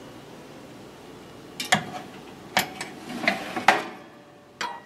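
Metal cutlery clinking and knocking against a ceramic plate: a string of short sharp clinks starting about a second and a half in, the loudest around three and a half seconds, with one more knock near the end.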